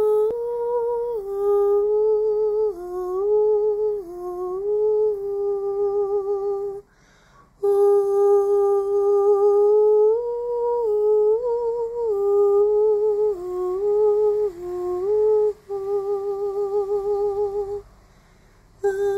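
A person humming a slow, wordless improvised melody, moving between held notes with vibrato. It breaks off briefly twice, about seven seconds in and near the end.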